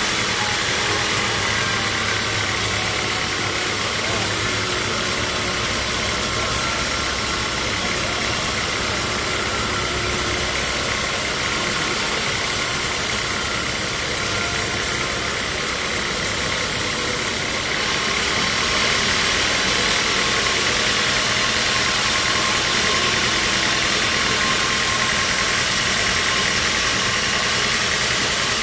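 Sawmill machinery, a bandsaw mill, running steadily with a constant mechanical hum and hiss; the high hiss drops a little about two-thirds of the way through.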